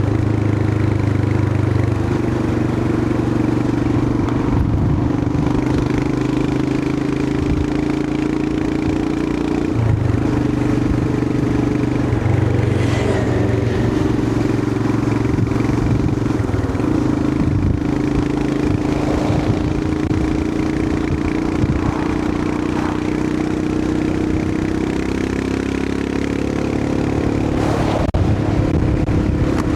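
Royal Enfield Himalayan 411's single-cylinder engine running at a fairly steady cruising speed, its pitch rising and falling a little, with a few brief knocks along the way.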